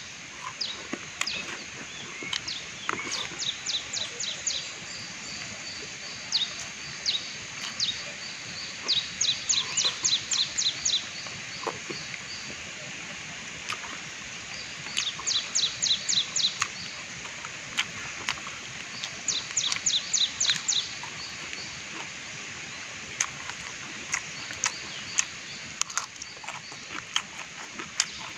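A bird calling outdoors: short runs of quick, high-pitched chirps, each about two seconds long, repeating every few seconds.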